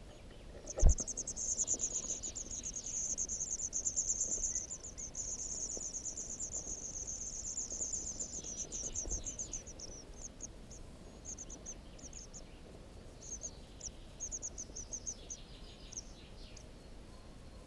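White wagtail nestlings begging: a dense, rapid, high-pitched chorus of calls that starts right after a sharp knock about a second in, runs on for about nine seconds, then breaks into short bursts that die away.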